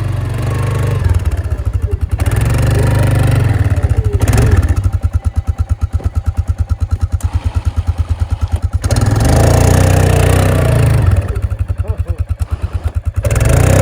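Four-wheeler (ATV) engine running, twice revving up and dropping back to an evenly pulsing idle in between.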